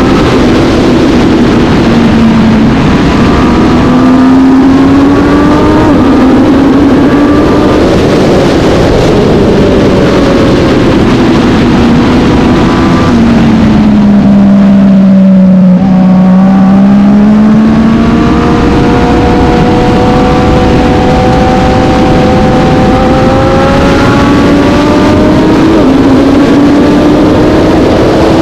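Vintage road-racing motorcycle engine at racing speed, close and loud: revs climb and drop back at each gear change, ease off to a low point about halfway through, then pull steadily back up.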